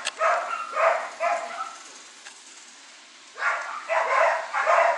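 A dog barking in two runs of three barks, about two barks a second, with a pause of about two seconds between them.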